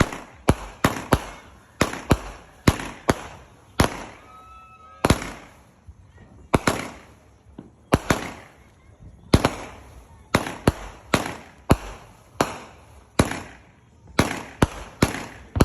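Tornado Whirlwind 200-gram fireworks cake firing its shots: a run of sharp bangs, about one to two a second, each trailing a short fading hiss.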